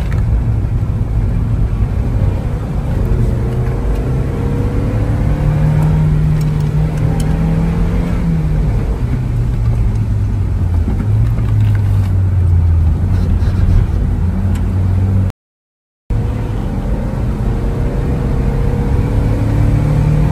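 A car engine heard from inside the cabin, its pitch repeatedly climbing under acceleration and dropping at shifts and lifts, over steady low road rumble. About three-quarters of the way through, the sound cuts out completely for under a second.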